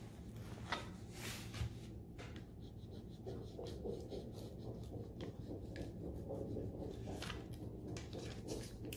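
A small hand tool rubbing and scraping in short, irregular strokes over a rub-on transfer laid on an MDF frame, burnishing the transfer onto the wood.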